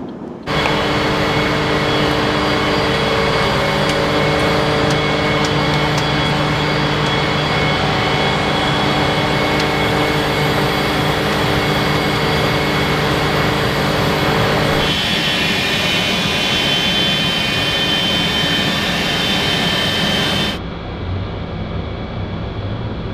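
Lockheed U-2's single turbofan jet engine running loud and steady, a broad roar with a whine over it. The sound cuts in abruptly just after the start, changes in pitch and tone about two-thirds of the way through, and drops off sharply near the end.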